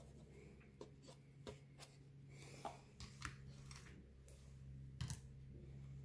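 Faint, irregular scraping and tapping of a plastic palette knife mixing acrylic paint on a paper plate, with a sharper double click about five seconds in, over a steady low hum.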